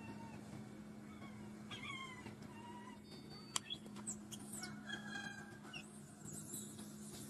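Infant macaque crying in faint, short, high-pitched squeaks that rise and fall, over a steady low hum, with one sharp click about three and a half seconds in.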